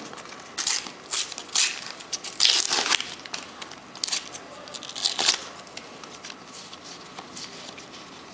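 Panini sticker packet being torn open and its wrapper crinkled: a string of sharp tearing and crackling rustles in the first half, the loudest about two and a half seconds in, then lighter handling rustles.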